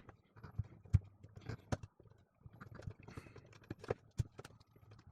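Irregular clicks and light knocks of a small coffee grinder and its parts being handled during repair, the sharpest knock about a second in.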